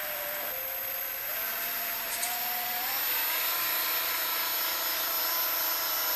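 A small RC boat's electric outboard motor and its 3D-printed plastic bevel-gear drivetrain whining steadily under way. The whine steps up in pitch about a second in and again about three seconds in as the throttle comes up.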